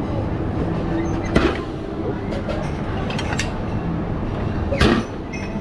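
Busy restaurant hall ambience: a steady din of many people talking, with two sharp knocks or clinks about a second and a half in and near the end.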